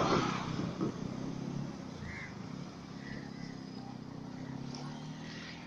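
A motor engine running steadily at a low hum, after a rush of noise that fades out in the first second. A few faint short chirps are heard over it.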